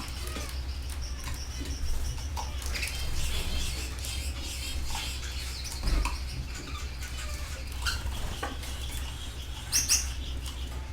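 Canaries in an aviary chirping and calling, many short overlapping chirps and whistles, over a steady low hum. There is a soft knock about six seconds in and a loud double chirp near the end.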